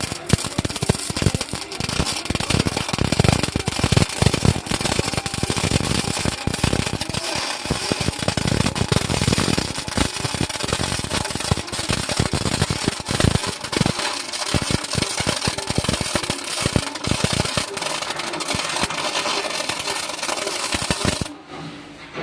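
MIG welding arc crackling steadily in a dense, rapid sizzle, cutting off suddenly about a second before the end.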